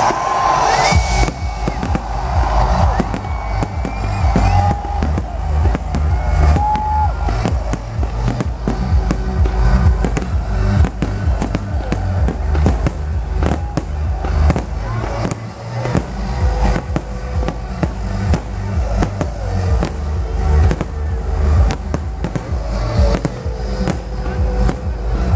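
Aerial fireworks shells bursting in a dense run of sharp bangs and crackles, with loud electronic dance music and a deep bass underneath.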